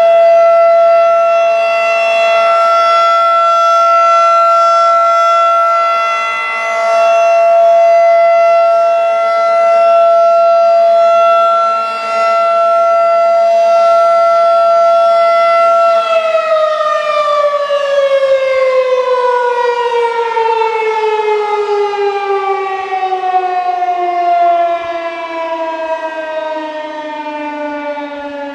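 Federal Signal 2001-SRNB rotating electromechanical siren sounding a steady tone during a test, dipping in loudness twice as the rotating horn turns away. About two-thirds of the way in the power cuts and it winds down, its pitch falling steadily.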